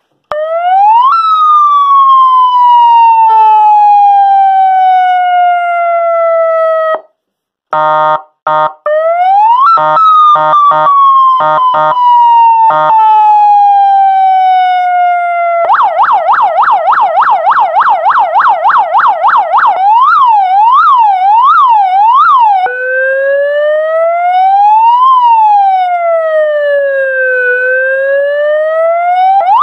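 200-watt electronic police siren played through a flat siren speaker, stepping through its tones. First a wail rises and then slowly falls. A run of short horn blasts follows, then a fast yelp, a quicker warble, and a slow wail rising and falling.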